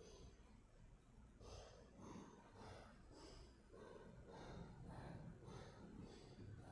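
Near silence: faint room tone with soft, evenly spaced rustling noises about twice a second.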